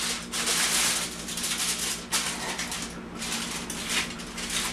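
Aluminium foil crinkling and rustling as hands press and crimp it down around the rim of a metal baking pan, in uneven crackly swells over a low steady hum.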